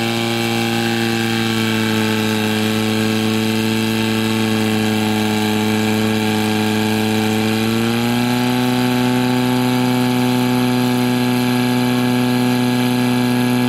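Portable fire pump engine running flat out while pumping water from the tank out to the hose lines. It gives a steady, loud drone that steps up slightly in pitch about eight seconds in and then holds.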